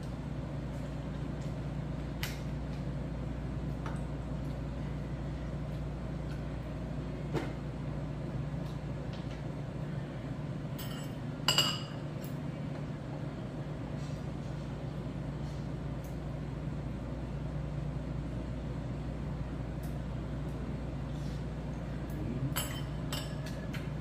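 Scattered light clinks of metal chopsticks and tableware over a steady low room hum, with a short, louder cluster of clinks about halfway through.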